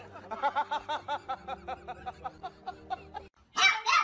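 Rapid, rhythmic snickering laughter, about six or seven short laughs a second. After a brief gap near the end, a puppy gives a loud, high-pitched whine.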